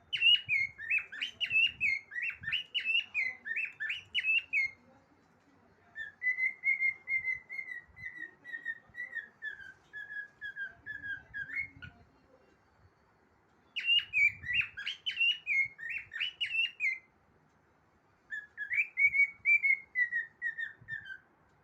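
Cockatiel singing: four whistled phrases with short pauses between them. The first and third are quick warbling runs of notes; the second and fourth are strings of short notes that slide gradually downward in pitch.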